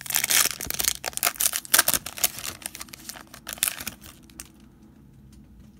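Foil wrapper of a 2017-18 Status basketball card pack crinkling and tearing as the pack is opened by hand. The crackling stops about four and a half seconds in.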